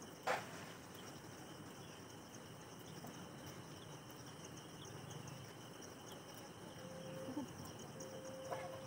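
Faint insect chorus, steady and high-pitched, with a single sharp click about a third of a second in and a faint held tone twice near the end.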